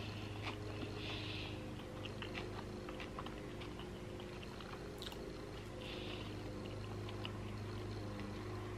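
Close-miked chewing of a bite of chicken salad tortilla wrap, with small wet mouth clicks and finger-licking sounds, over a faint steady low hum.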